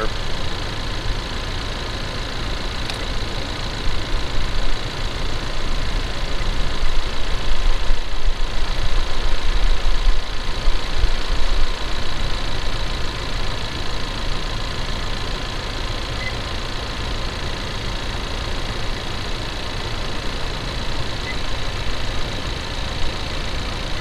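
Ford Ranger 2.3-litre EcoBoost four-cylinder engine idling, picked up through a mechanic's stethoscope probe pressed against engine parts. A faint steady whine runs under it, and it grows louder and rougher for several seconds in the middle as the probe moves.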